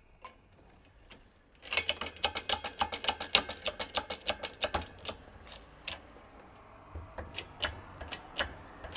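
Quick run of sharp metal clicks, about ten a second, then sparser single clicks, as a wheel bearing is pressed into a MK1 VW Rabbit front steering knuckle on a bench-top hydraulic shop press.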